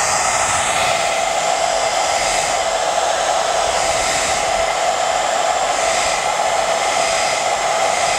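Handheld hair dryer running steadily, a rush of air with a steady whine on top, blowing on the glued edge of a lace frontal wig to dry the edge-booster adhesive.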